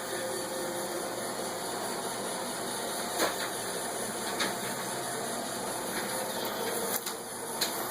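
Roomba robot vacuum running with a steady whir of its motors and suction, with a few brief clicks or knocks.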